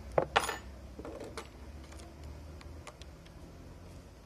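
Small hand tools handled on a workbench: two sharp clacks in quick succession right at the start, a few lighter clicks and taps about a second in, then faint scattered ticks.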